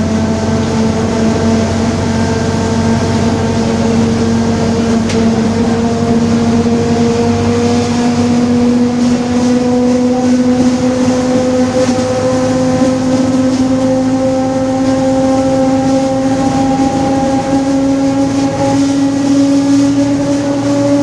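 Rear differential of a Mercedes-Benz OF-1721 bus howling very loudly on the move. It is a steady gear whine of several tones together, rising slowly in pitch over the noise of the running bus.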